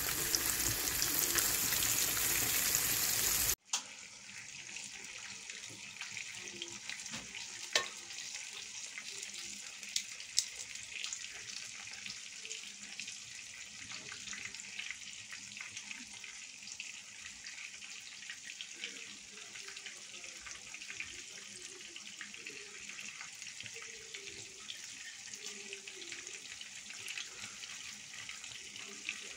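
Floured carp pieces frying in hot oil. A loud, dense sizzle stops suddenly a few seconds in, followed by a quieter, steady sizzle with occasional sharp pops of oil.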